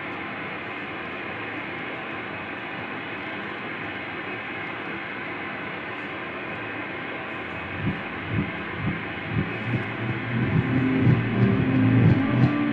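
Experimental ensemble noise music: a dense, steady wash of noise from a dozen musicians. About eight seconds in, low pulses begin, about two a second, then thicken into low sustained tones as it grows louder near the end.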